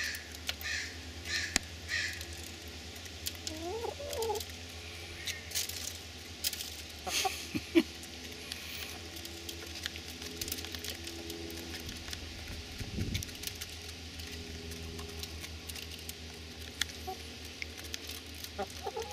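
Backyard hens (buff Orpingtons and black Australorps) clucking a few times, short calls that glide up and down, while their beaks tap quickly and repeatedly as they peck grain from an open hand.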